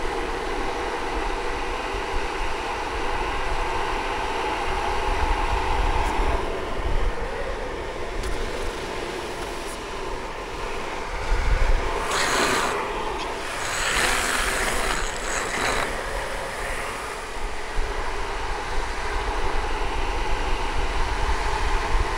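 Wind rush and the rumble of longboard wheels rolling fast on asphalt. Twice, around the middle, a loud bright scraping hiss as the rider slides through a bend with a hand down on the road.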